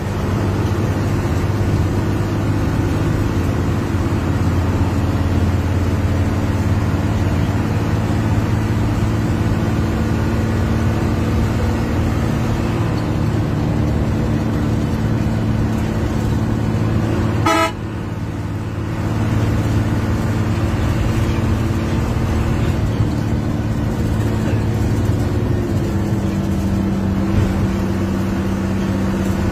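Hino 1J bus engine running hard at steady highway speed, heard from the driver's cabin as a loud, even drone with a steady low hum. The sound briefly dips about two-thirds of the way through.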